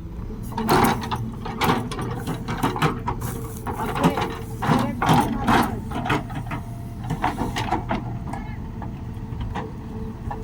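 Diesel engine of a backhoe loader running steadily under a string of sharp metallic clanks and knocks, thickest in the first six seconds and thinning out after.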